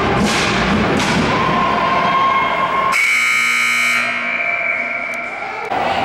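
Rink ambience, then about halfway through an abrupt, steady electronic buzzer tone that holds for a couple of seconds.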